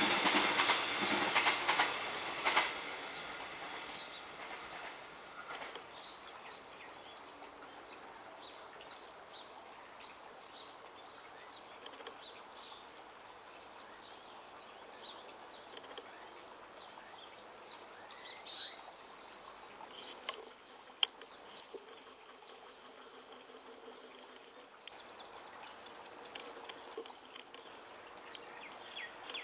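Garden outdoor ambience: a steady soft hiss with scattered short, high bird chirps. Louder noise in the first couple of seconds fades away, and a single sharp click comes about 21 seconds in.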